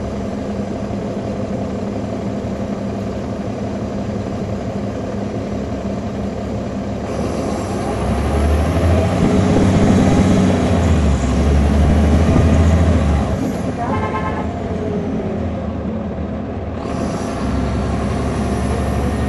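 Caterpillar C13 ACERT diesel engine of a NABI 40-SFW transit bus, heard on board. It runs steadily, then pulls harder and louder from about eight seconds in for about five seconds before easing off. A short beeping tone sounds about fourteen seconds in.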